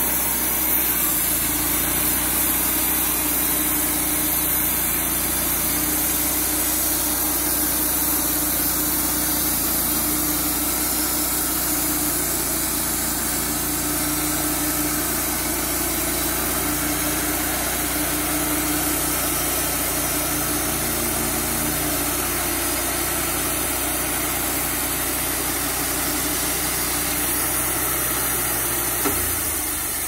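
Wood-Mizer LT35HD sawmill's engine running steadily.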